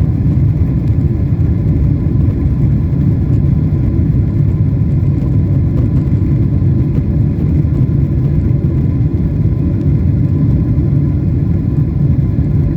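Airliner cabin noise: the steady, loud low rumble of jet engines and airflow heard from inside the passenger cabin.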